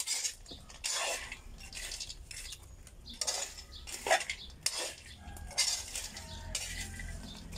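Metal spoon stirring and scraping dried cacao seeds in a metal pan, the beans rattling against the pan in a string of short, irregular strokes as they are dry-roasted.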